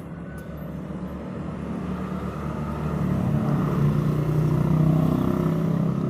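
A motor vehicle's engine passing by, growing steadily louder over a few seconds and easing off slightly near the end.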